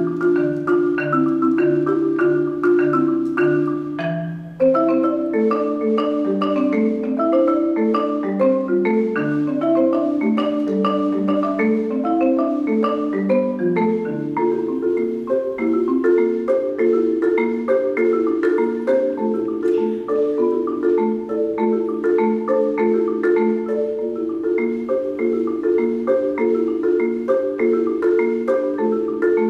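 Four-mallet solo on a Musser marimba: fast, evenly pulsed figures of struck notes in the low and middle range, with a brief break about four and a half seconds in before the patterns start again.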